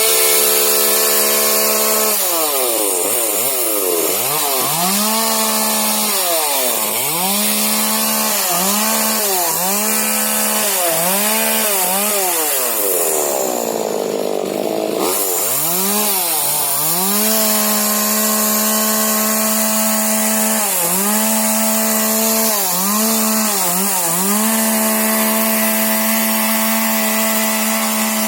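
Husqvarna 125 40cc two-stroke mini chainsaw running at high revs, its throttle blipped up and down many times over. About halfway through the revs sag and a rasping cut is heard as the chain bites into a branch, before the engine climbs back to full revs.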